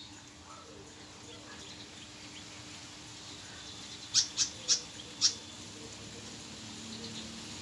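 A small bird pecking at a car's side mirror, attacking its own reflection: four sharp taps in quick succession about four seconds in, with faint bird chirps around them.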